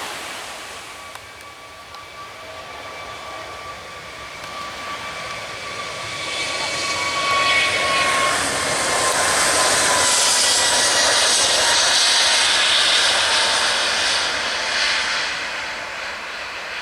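Jet airliner passing close by: an engine whine that slowly falls in pitch under a rushing roar, which builds to its loudest about halfway through and eases off near the end.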